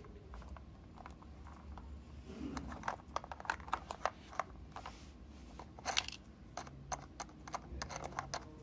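Hard plastic toy truck being handled and turned over by hand: a run of sharp plastic clicks and knocks starting a couple of seconds in.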